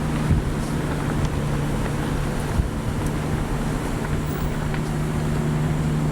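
Car driving slowly, a steady engine hum and road noise heard from inside the cabin.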